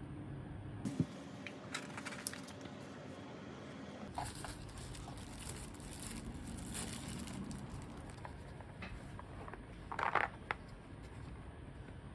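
Packaging and small plastic parts being handled: crinkling and rustling with scattered small clicks and taps, and a louder rustle about ten seconds in.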